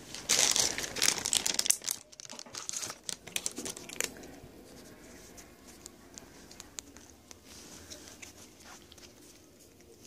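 Cat-treat bag crinkling loudly for about two seconds, then a few sharp clicks and rustles as the treats are shaken out, after which it goes quiet.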